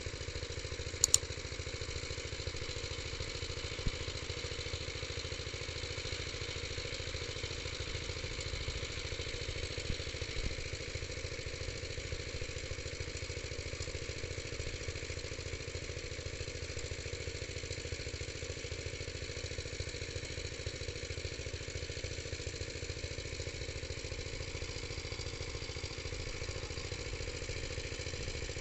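A small engine running steadily, with a couple of faint knocks about 4 and 10 seconds in.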